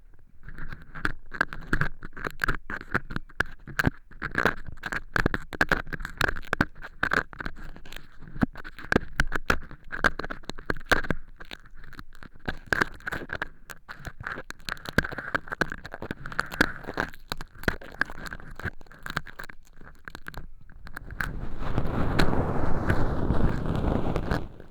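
Earpick scraping dry cork-chip fake earwax inside a silicone ear, a dense run of crunchy, crackling scratches and clicks. About 21 seconds in it gives way to a louder, continuous rubbing noise.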